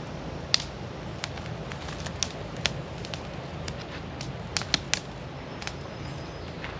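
Footsteps crunching over dry ground: irregular sharp snaps and clicks underfoot.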